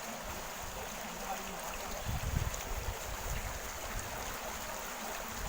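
Steady rush of flowing water, with a few low rumbles about two seconds in.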